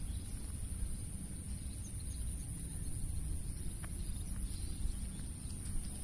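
Rural field ambience: a steady high-pitched insect drone over a low rumble, with a few faint clicks.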